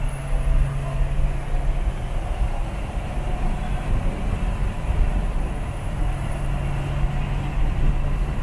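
Steady engine drone and road rumble heard from inside a vehicle cruising at highway speed.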